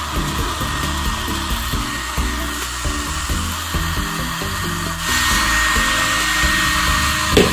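Handheld hair dryer blowing steadily while heating self-adhesive vinyl wrap. About five seconds in it gets louder and a steady high whine comes in. A short knock is heard near the end.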